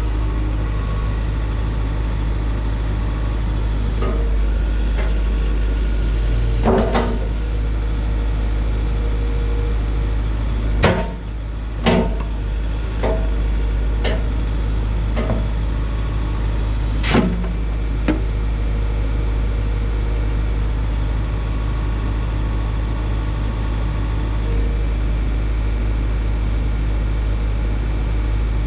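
Atlas 140W wheeled excavator's diesel engine running steadily as the boom and bucket are worked. Sharp knocks and clunks come through from about 4 to 18 seconds in, the loudest around the middle.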